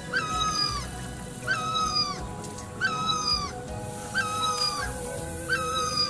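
An animal's high cry repeated five times at a steady pace, about one every second and a half. Each cry is short, jumps up sharply at its start, then holds and falls slightly.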